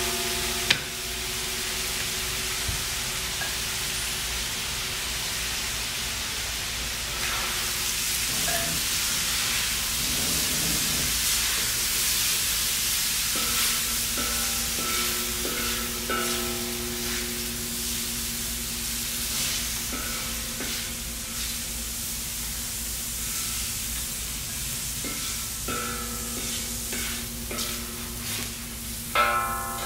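Sliced peppers and onions sizzling in hot oil in a discada, a wide steel plow-disc pan, while a wooden spatula stirs and scrapes them across the pan, with a sharp knock about a second in.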